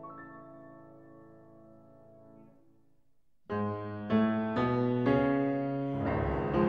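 Background piano music: one piece fades away, a moment of near silence follows, and a new piano piece starts about halfway through with clearly struck notes.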